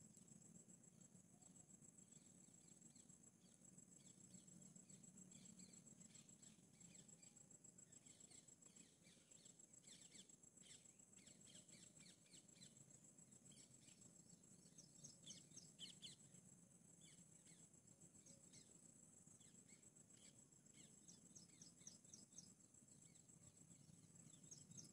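Near silence: faint outdoor ambience with a steady high-pitched insect trill and scattered short, high chirps, some in quick runs.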